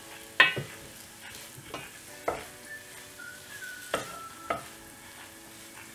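Wooden spatula stirring and knocking against a nonstick pot as coarsely ground chana dal fries in oil, with a faint sizzle. There are about six separate knocks and scrapes, spaced unevenly.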